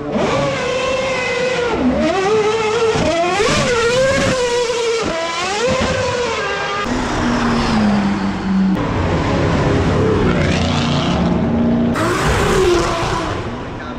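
Race car engine revving hard, its pitch swooping up and down repeatedly, then running lower and steadier with tyre noise. A rising whine comes late, and a burst of tyre noise near the end as the car slides.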